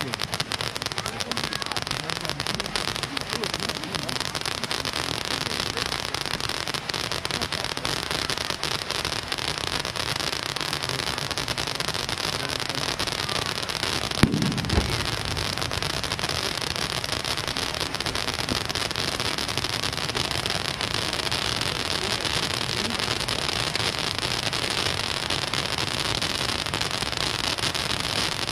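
Dense, continuous crackling of many firecrackers and fireworks going off together, with one louder bang about halfway through.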